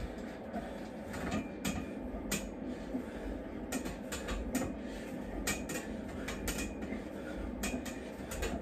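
Light, irregular clicks and creaks from a freestanding steel dip station flexing under a person's weight during repeated dips, over a steady low hum.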